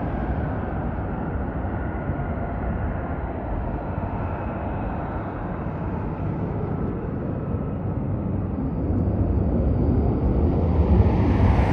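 Fighter jet engines running as the jets taxi into position for takeoff: a steady low rumble with a faint high whine over it, growing louder near the end.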